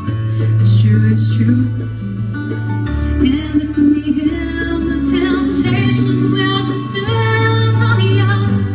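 A woman singing a slow country ballad into a microphone over an instrumental accompaniment, with a steady bass line that changes note every few seconds.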